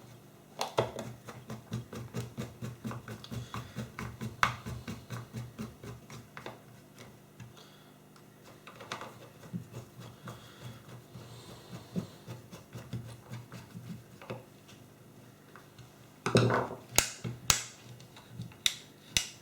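Rapid run of small clicks, several a second, for the first several seconds, then scattered taps and a few louder knocks near the end: a screwdriver and hands working as the light-dimmer controller's housing is screwed together.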